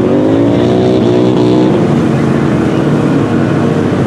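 Side-by-side UTV engine revving hard as the machine ploughs through deep mud. The pitch climbs over about the first second, dips a little near the middle, then holds steady at high revs.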